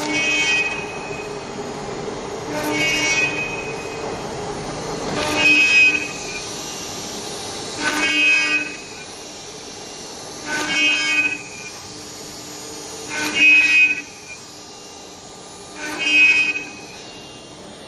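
CNC router spindle drilling a row of holes in plastic sheet: a steady spindle hum, broken seven times by a pitched whine about a second long each time the bit plunges into the sheet, roughly every two and a half seconds.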